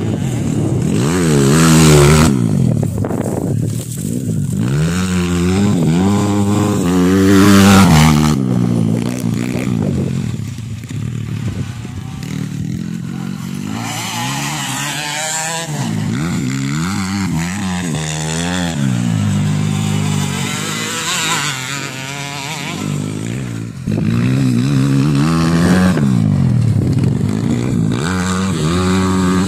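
Motocross dirt bikes revving hard on a dirt track, engine pitch climbing and dropping again and again as they accelerate, shift and ease off through the corners and pass by. The engines get suddenly louder near the end.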